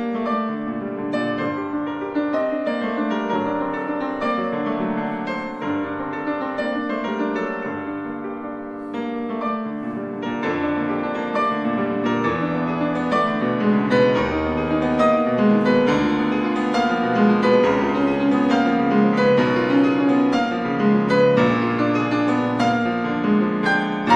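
Solo grand piano playing a classical sonata passage, many notes in close succession, growing louder about ten seconds in.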